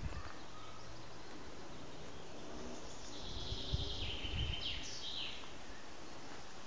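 Woodland ambience: a steady hiss with a bird calling for about two seconds around the middle, its high call stepping down in pitch. A few low thumps come at the same time.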